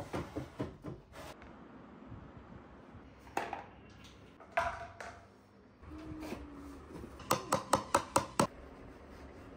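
Kitchenware being handled: a clatter at the start, then two ringing clinks of glass or crockery, and near the end a quick run of about seven sharp clicks, roughly six a second.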